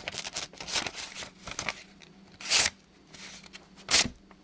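Paper being sliced with a multi-tool's knife blade: rustling and tearing, with two louder rips about two and a half seconds and four seconds in.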